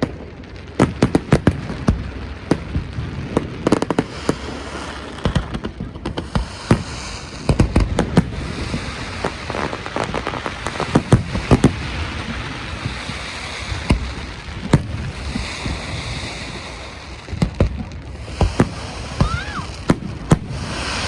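Fireworks display: many sharp bangs from aerial shells, some in quick clusters, over a steady crackling hiss. A short rising whistle comes near the end.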